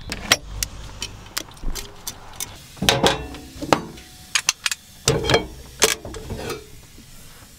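Irregular clicks, knocks and clatter of a cookware pot and its clip-on handle being handled on a gas stove's grate, with a low rumble of movement in the first two seconds.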